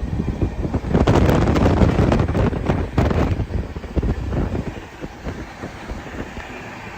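Wind buffeting the microphone in irregular gusts, heaviest for the first few seconds and easing off after about five seconds.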